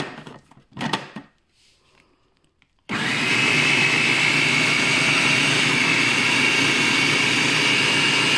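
Hamilton Beach food processor switching on abruptly about three seconds in and running steadily as it chops broccoli, a motor hum with a steady high whine over it.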